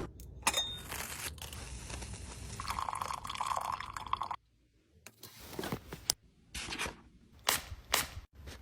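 Close-up crunching and scraping handling sounds for about four seconds, then a brief silence and a few separate sharp clicks and taps.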